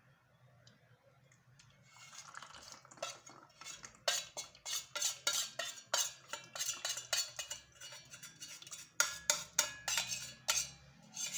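A spoon scraping and tapping against a dish while a thick honey-and-onion mixture is spooned into a bottle: quiet scraping at first, then quick clinks about two or three a second from about four seconds in, with a short lull near the end.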